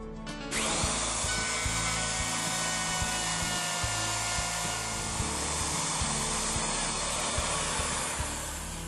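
Electric router switching on about half a second in and cutting a shallow mortise in a door edge, a steady high whine over dense cutting noise. Background music plays underneath.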